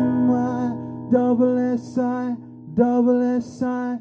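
Live acoustic song ending: a male voice sings short separate syllables, spelling out 'Mississippi' letter by letter, over an acoustic guitar chord left ringing.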